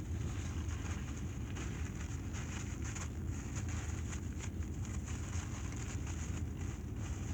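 Car cabin noise while driving: a steady low rumble of engine and road, with faint small clicks here and there.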